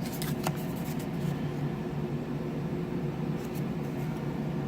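Steady low mechanical room hum, like a fan or air conditioner running, with a few light ticks and rustles from a paper card being handled in the first second and again about three and a half seconds in.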